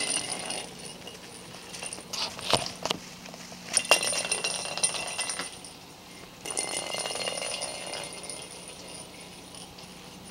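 A small jingle bell inside a toy ball jingling in spells as the ball is rolled and batted across a wooden floor, with a few sharp knocks about two to four seconds in.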